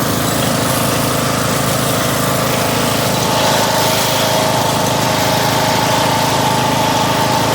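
Small engine of a ride-on vehicle running steadily as it drives along, with a higher whine joining about three seconds in.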